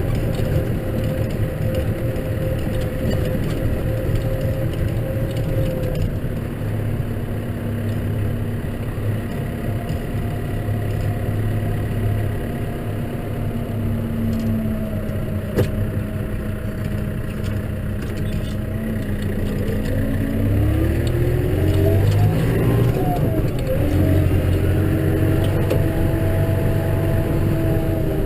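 Case tractor engine running under way while ploughing snow. Its pitch holds steady at first, then rises and falls again a little past the middle before settling.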